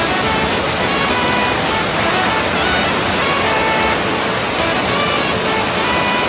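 Waterfall cascading over rocks: a steady, loud rush of water, with background music of short notes laid over it.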